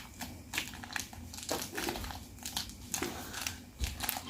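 Irregular crinkling and light crackling as super clay and its packaging are handled by hand.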